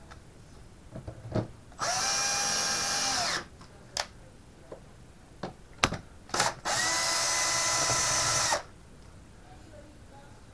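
Compact DeWalt cordless drill driving screws: two runs of a steady motor whine, each about one and a half to two seconds long, each winding up at the start and down at the end. Short clicks and knocks from handling come before, between and after them.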